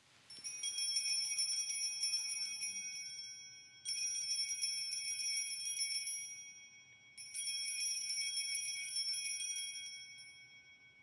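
Altar bells shaken three times, each a jingling ring that fades out over a few seconds, marking the elevation of the host at the consecration.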